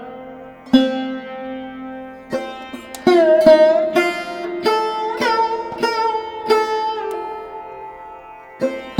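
Live Pakistani classical instrumental music: a string of separate plucked notes, several sliding in pitch as they sound, with quicker runs in the second half.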